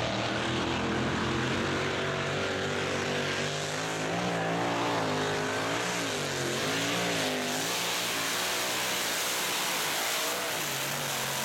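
Mini tractor puller's engine running at full throttle while dragging the weight sled, its pitch rising and falling as the revs surge and drop under load.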